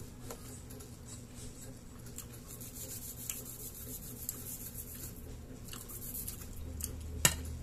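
Small knife scraping and paring the skin of an unripe green mango, a run of faint scratchy strokes, with one sharp click just before the end.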